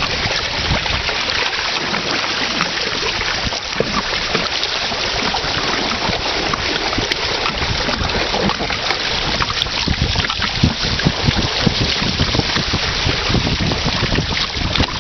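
Wind buffeting the microphone over water rushing and splashing along a small sailing catamaran's hull as it sails through choppy water, with gusty low rumbles that grow stronger in the second half.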